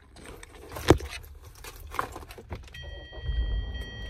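Clicks and knocks of things being handled inside a car, with one sharp thump about a second in. Near the end a steady electronic tone from the car comes on, joined by a low rumble.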